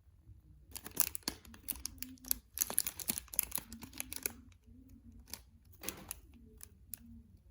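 Crinkly material being handled and torn: a dense run of sharp crackles for about three seconds, then a few scattered ones.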